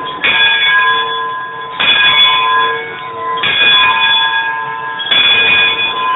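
The Mark Twain riverboat's deck bell, rung from the wheelhouse by a pull cord: four strokes about a second and a half apart, each ringing on into the next. These are part of an eight-bell signal.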